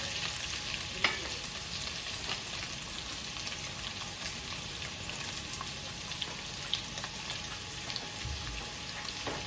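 Food sizzling in a frying pan while being stirred, with scattered light clicks of the utensil against the pan and one sharper click about a second in.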